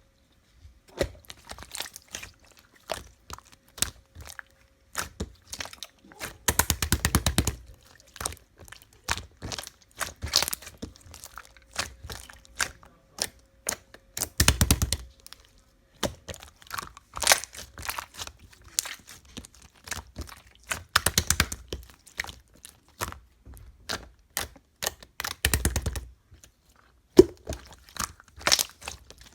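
Slime being pressed and squeezed by hand, giving off sharp clicking and crackling pops, with denser runs of crackles every few seconds.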